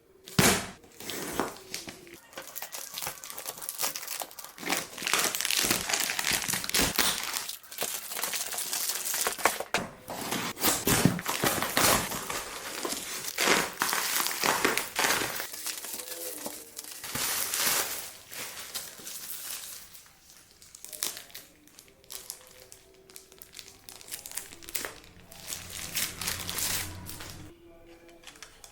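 Packaging being handled and opened: irregular bursts of crinkling and rustling with small clicks and knocks, thinning out near the end.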